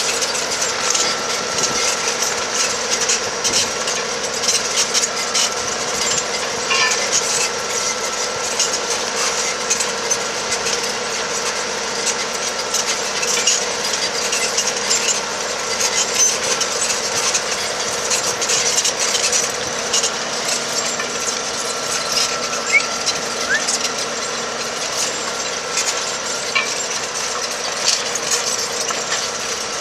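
Tractor engine running steadily under load while pulling a seven-body mounted moldboard plow through the soil, with a steady drone and a constant crackle of small clicks and rattles.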